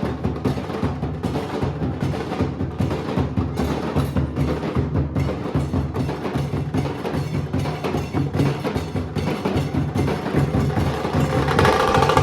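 Nasik dhol ensemble drumming: a fast, dense rhythm of loud strikes. Near the end a steady pitched ringing joins in and the sound grows a little louder.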